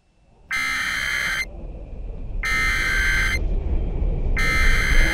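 Emergency Alert System tornado warning: three harsh, buzzy data bursts of about a second each, spaced about a second apart. This is the digital header that opens a broadcast emergency alert. A low rumble builds underneath.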